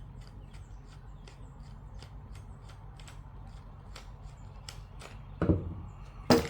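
Flathead screwdriver backing the bottom screw out of an A2 rifle stock's butt plate, making light ticks about three a second. Near the end a louder knock and then a sharp click.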